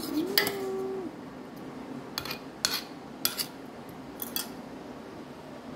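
A metal spoon clinking against a stone mortar of sambal, about six sharp clinks spread over the first four and a half seconds. A brief held hum-like tone sounds in the first second.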